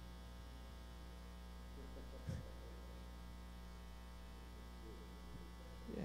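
Steady electrical mains hum, with two faint, brief sounds, one about two seconds in and one near the end.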